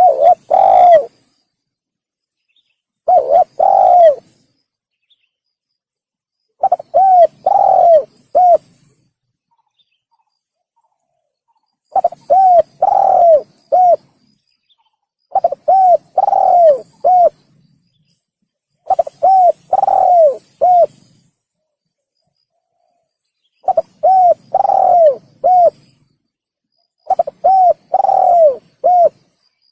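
Spotted dove (tekukur) cooing: short phrases of three or four coos, one of them longer and falling in pitch, repeated eight times about every three to four seconds with clear silence between.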